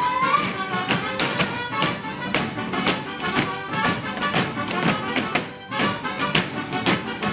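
Live mariachi band with violins and guitars playing a lively Mexican folk tune, with sharp rhythmic heel-and-toe taps from folklórico dancers' zapateado footwork mixed in.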